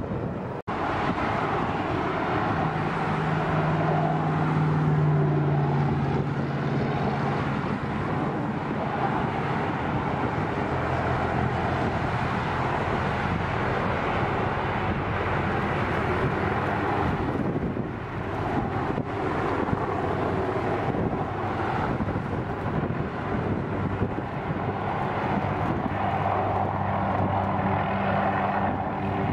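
MD 500-series helicopter flying close by and then hovering beside a power-line pole, its rotor and turbine making a steady drone with a low hum that shifts in pitch. The sound cuts out for a moment under a second in.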